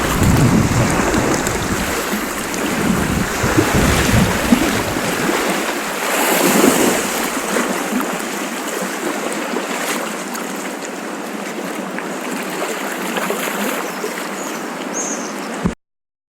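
Sea waves washing, with wind rumbling on the microphone for the first few seconds; the sound cuts off suddenly near the end.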